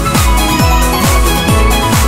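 Electronic dance music with a steady four-on-the-floor kick drum, a little over two beats a second, under sustained synth tones.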